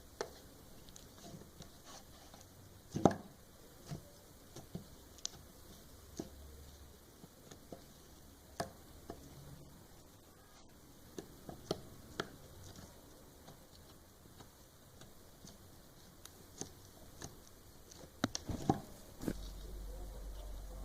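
Slime being handled: irregular soft clicks, pops and taps, the loudest about three seconds in and a cluster of them near the end.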